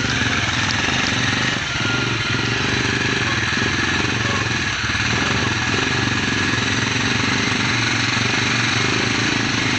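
ATV engine running at a steady, unchanging pitch, without revving up or down.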